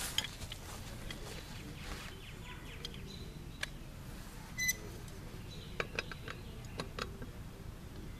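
Faint scattered clicks and taps of a socket and breaker bar being handled and fitted onto a wheel's lug nut, most of them in the second half, over a low steady background.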